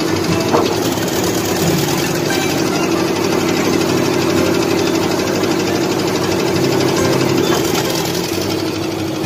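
Ford 600 tractor's four-cylinder gasoline engine running steadily while the tractor works.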